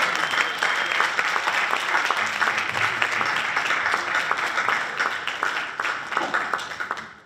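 Audience applause, many hands clapping together, tapering off near the end and then cut off abruptly.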